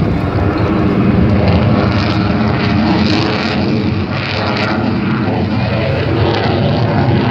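F-16 fighter jet's engine noise, loud and steady as the jet flies.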